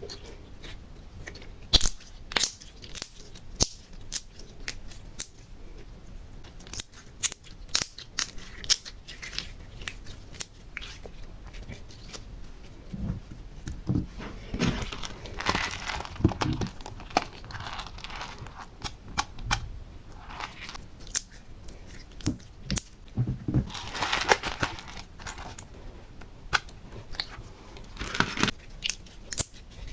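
Close-miked handling sounds: scattered sharp clicks and taps of small objects, with two stretches of crinkling, tearing rustle, one about halfway through and one near three-quarters through.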